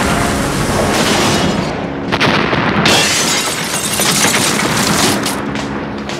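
Loud, dense crashing and booming from a war-film soundtrack: explosions with breaking, shattering debris and repeated impacts.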